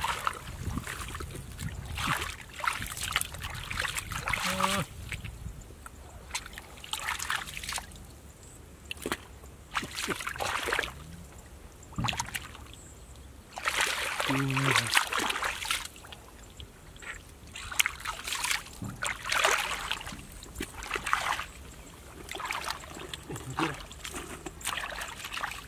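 Bare feet wading through shallow, muddy water, making irregular splashes and sloshes, some about a second apart and others with longer pauses.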